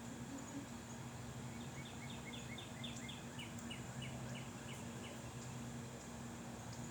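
A small bird calls a quick series of short, falling chirps, about four a second for three and a half seconds, starting about one and a half seconds in. Underneath is a steady low hum and an even background noise.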